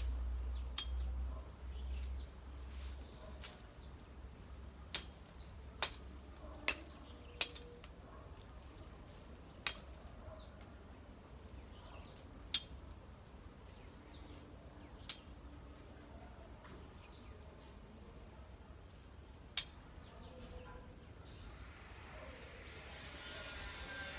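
A blade knocking sharply on a hard surface during hand food preparation, about a dozen single strokes at irregular intervals. Faint bird chirps sound in between, and a steadier noise builds near the end.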